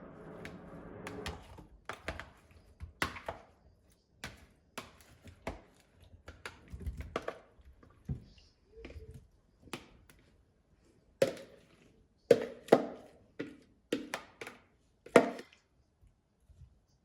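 A series of irregular knocks, taps and thuds, like utensils and dishes being handled in a kitchen. A steady low hum dies away about a second in.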